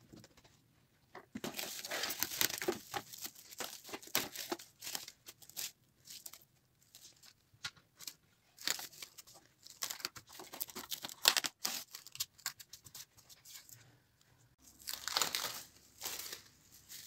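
Plastic cling film crinkling and crackling in irregular bursts as it is pulled, stretched and pressed over a glass baking dish, with short pauses between handlings.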